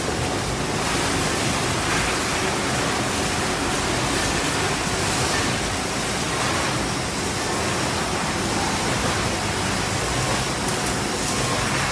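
Steady, even rushing noise of a kettle-chip production line's machinery running, with no distinct knocks or rhythm.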